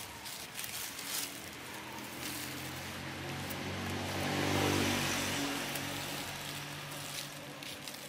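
A motor vehicle passing by: its engine hum and tyre noise grow to their loudest about halfway through, then fade. Light knocks of yams being handled come near the start and end.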